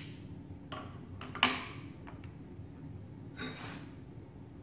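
Steel pipe clanking against metal as it is set into a pipe-cutting machine: three separate knocks, the loudest about a second and a half in with a short metallic ring.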